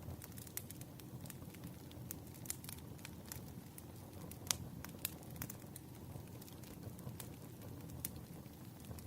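Wood campfire crackling: a low steady rumble of flames with scattered sharp snaps, the loudest about four and a half seconds in.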